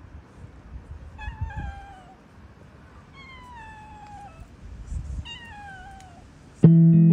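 Calico cat meowing three times, each meow a falling call just under a second long. Guitar music cuts in suddenly near the end, louder than the meows.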